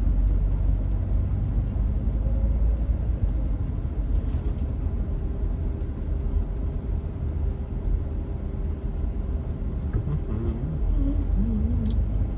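Steady low rumble inside a car's cabin, with the air-conditioning fan turned down low.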